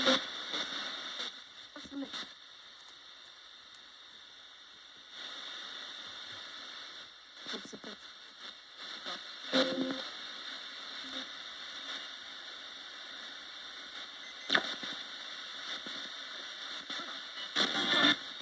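Roberts radio being swept across the tuning band: a steady hiss of static between stations, broken a few times by brief snatches of broadcast sound, with a sharp crackle a little past the middle.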